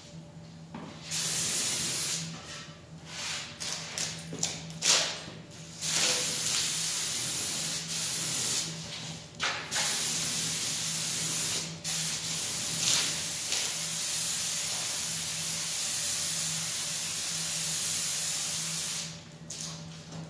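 A compressed-air spray gun with a siphon cup hisses in bursts as the trigger is pulled and released, spraying a sealer coat onto a wooden tabletop. There are several short bursts in the first few seconds, then longer stretches of steady spraying, and it stops about a second before the end.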